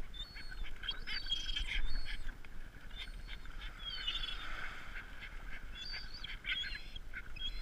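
Gulls calling in a flock, many short harsh squawks from several birds at once, with a few longer wavering calls about four seconds in.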